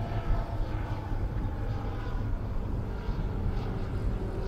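Dewoitine D.26 RC scale model airplane's motor and propeller droning steadily as it flies overhead, faint against a low rumble.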